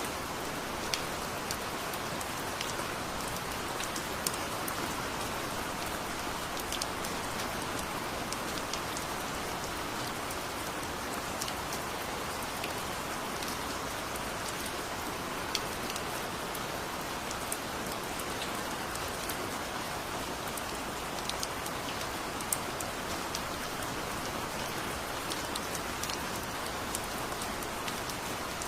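Steady heavy rain: an even hiss, with scattered sharp ticks of individual drops striking close by.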